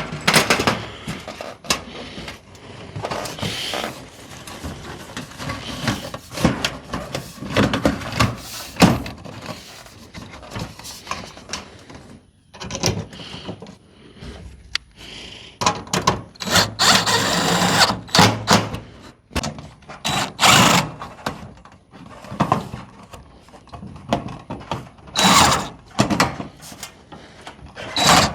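Power drill running in short, irregular bursts, with knocks and rattles in between.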